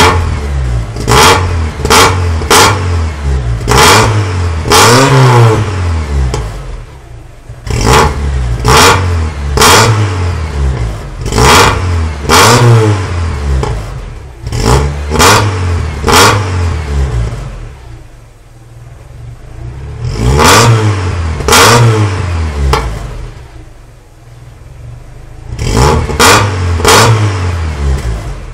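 Mazda 323 engine revved through its exhaust in repeated sharp throttle blips. The revs fall back toward idle after each blip. It settles at a quieter idle for a couple of seconds a little past the middle and again about two-thirds through.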